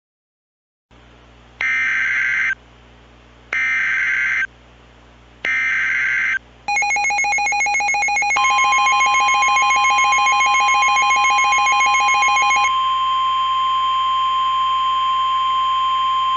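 Emergency Alert System alert opening: three screechy digital SAME header data bursts, each about a second long with about a second's gap between them. Then the EAS two-tone attention signal sounds, and a couple of seconds later the steady single-pitch NOAA Weather Radio warning alarm tone joins it. About six seconds after it began, the two-tone stops, leaving the weather-radio alarm tone sounding on alone.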